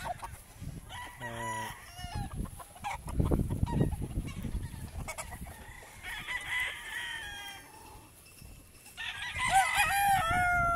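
Gamefowl roosters crowing one after another, with a strong, overlapping crow about nine seconds in. There is a low rumbling noise a few seconds in.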